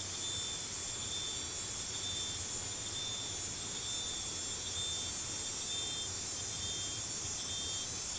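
Chorus of wild insects: a steady, high-pitched hiss, with a thinner shrill trill beneath it that pulses on and off.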